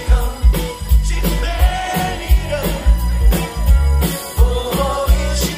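Live soft-rock (yacht rock) band playing: a male lead vocal over bass, guitars and drums, with a steady drum beat.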